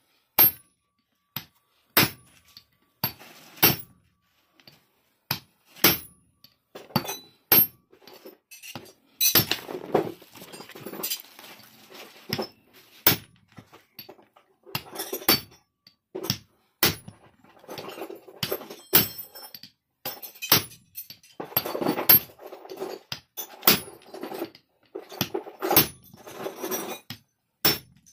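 Club hammer striking a steel shaft and pipe drift to drive a ball bearing onto a harvester tension-roller shaft. The blows come irregularly, often a second or two apart, with two busier stretches of quicker, lighter knocks.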